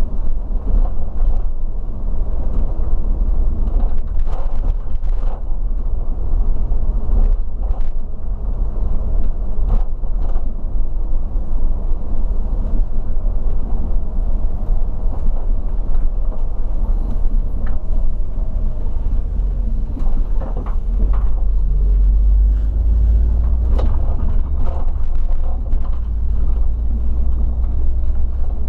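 Regional coach driving along, heard inside the cabin: a steady engine and road rumble with frequent short clicks. The low rumble grows heavier about three-quarters of the way through.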